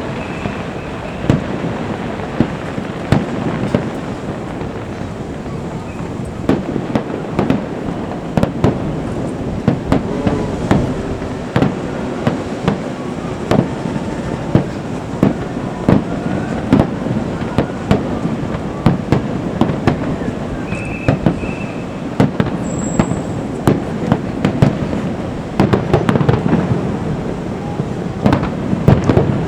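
Aerial fireworks display: many sharp bangs of shells bursting in quick, irregular succession over a continuous rumble.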